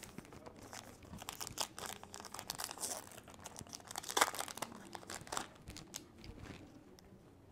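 Baseball card pack wrapper being torn open and crinkled by hand: a run of small crackles and rips, the loudest about four seconds in.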